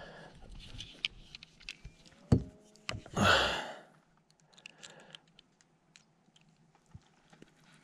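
Close handling noises of a plastic fish lip-gripper holding a bass: small scattered clicks and rattles, a sharp click a little after two seconds and a louder rushing, rustling burst about three seconds in, then only faint ticks.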